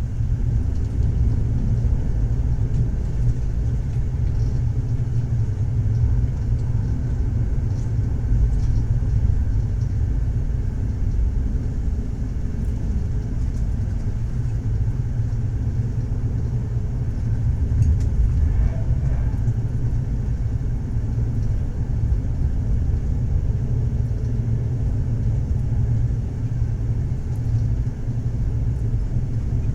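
Moving train, a steady low rumble from the wheels and carriage running along the track.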